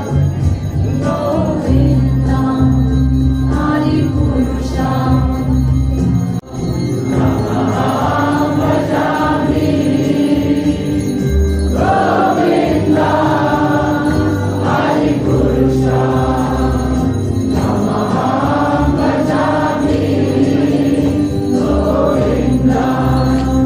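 Devotional chant sung by a group of voices over a steady held drone, with bells ringing, as at a temple's morning door opening; the music breaks off briefly about six seconds in.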